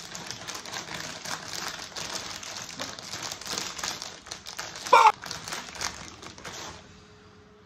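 Plastic potato chip bag crinkling and crackling as hands pull at its sealed top, trying to tear it open. The seal holds and the bag won't open. There is one sharp, louder burst about five seconds in, and the crinkling stops shortly before the end.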